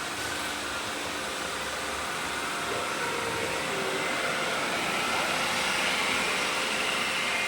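Several robot vacuum cleaners running at once: a steady whirring hum with thin motor whines, swelling slightly about two-thirds of the way through.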